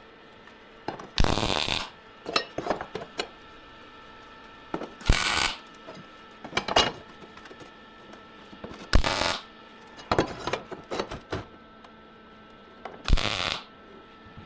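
Metalworking on a steel trolley: four short, loud bursts of harsh noise about four seconds apart, with lighter metallic clinks and clicks between them.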